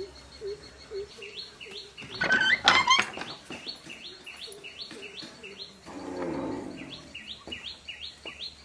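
Birds chirping: a steady series of short repeated high calls, about two or three a second, with a louder burst of chirping about two seconds in. A brief rustle comes about six seconds in.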